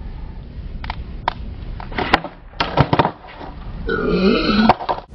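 Skateboard on a concrete sidewalk: several sharp clacks and knocks of the board, with a cluster of them about two to three seconds in, over a low rumble. Near the end comes a short, drawn-out vocal sound from a person.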